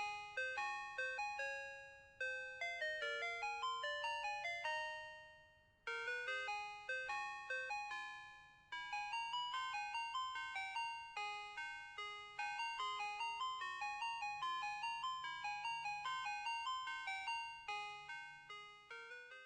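Ice cream truck jingle played as a chiming, music-box-like melody of quickly decaying bell notes. It comes in short phrases with brief pauses between them and stops just before the end.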